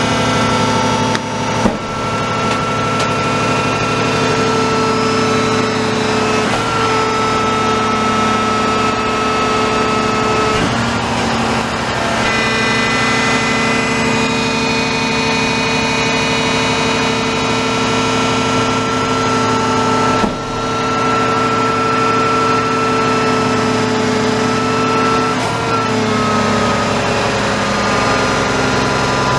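Garbage truck's diesel engine running steadily with a whine. Its pitch steps up and down several times as the revs change.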